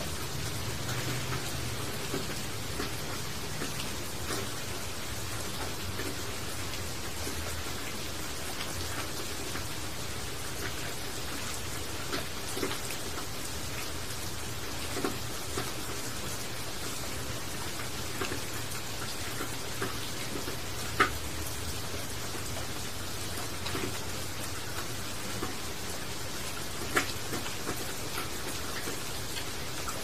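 Steady rain falling on broad leaves, with scattered drops ticking sharply close by; the loudest drops land about 21 and 27 seconds in.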